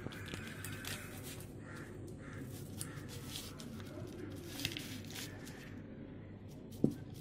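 Light clicks and scrapes of a spoon against a steel bowl and on the butter's paper wrapper, with one sharper knock near the end. A few faint bird caws are heard in the background.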